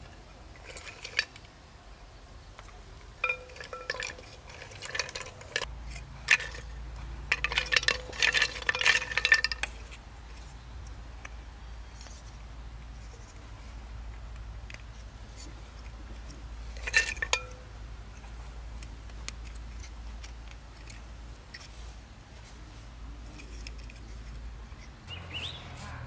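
Hollow bamboo tubes and sticks knocking and clinking against each other and against a terracotta pot as they are picked out and fitted together. The clacks come in scattered clusters, some with a short ringing note, the busiest run about a third of the way in and a single sharp clack a little past halfway.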